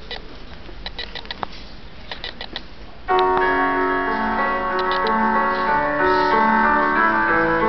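Recorded music for the dance starts abruptly about three seconds in, with sustained keyboard chords and melody notes, played loud over the hall's speakers. Before it, only quiet room noise with a few small scattered clicks.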